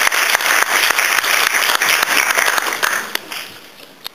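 Audience applauding, a dense clatter of many hands clapping that thins out and dies away about three seconds in.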